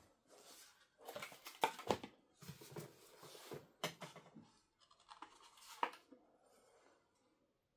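Hard plastic fan parts being handled and moved about: scraping and rubbing with a few sharp clicks and knocks, the loudest about two, four and six seconds in.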